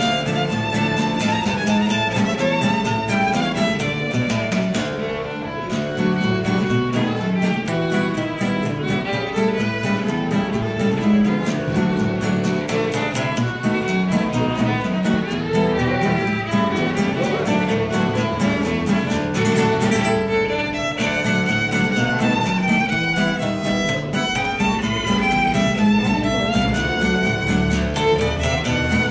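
Violin and acoustic guitar duo playing a tune: the violin carries the melody over a steady strummed guitar accompaniment.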